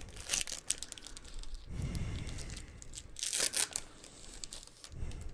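A Pokémon booster pack's foil wrapper being torn open and crinkled, in several short bursts of tearing and crackling.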